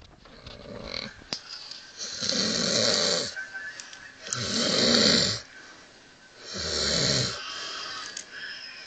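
A man snoring: a faint snore at the start, then three long snores about two seconds apart, each with a breathy hiss on the in-breath.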